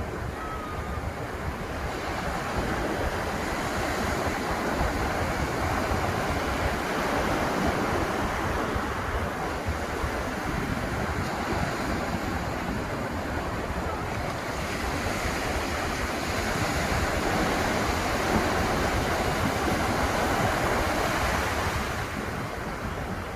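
Atlantic surf breaking and washing up the beach, a continuous rush that swells and eases in two long surges.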